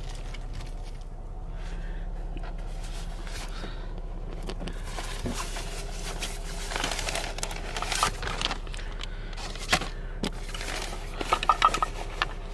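Rustling, light scraping and soft knocks of items being handled in a fabric trunk organizer, with a quick run of small clinks near the end.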